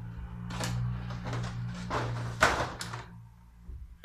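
Hard plastic toolbox parts and hand tools being handled: a few sharp clicks and knocks, the loudest about two and a half seconds in, over a steady low hum that fades near the end.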